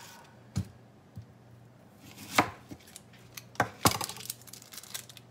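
Kitchen knife cutting an onion into chunks on a cutting board: irregular sharp knocks of the blade hitting the board, coming quicker with smaller clicks in the second half.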